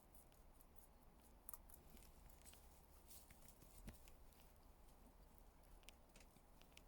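Rabbit chewing salad leaves: faint, irregular crisp crunching and clicking.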